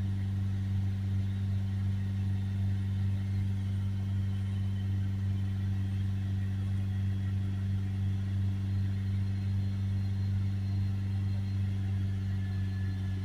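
Ford Transit diesel engine held at a steady fast run of about 3000 rpm during a diesel particulate filter clean; an even, unchanging engine hum.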